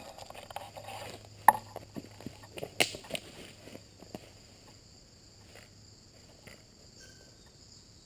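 Leafy branches and twigs rustling and snapping as a felled tree's limbs are pulled about and walked through, with a few sharp knocks in the first half, then a quieter stretch with a steady insect drone.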